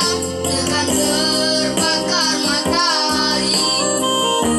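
Boys singing a song, accompanied by an electronic keyboard playing held chords.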